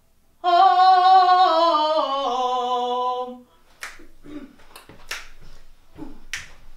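A woman sings one wordless phrase that steps down in pitch over about three seconds. Then come three sharp finger snaps, a little over a second apart, with fainter taps between them.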